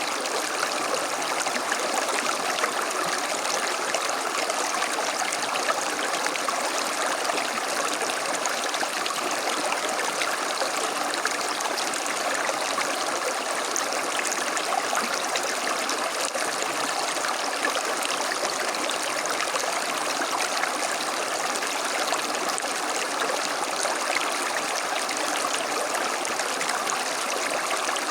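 Small creek flowing steadily over stones, a continuous babble and trickle of running water.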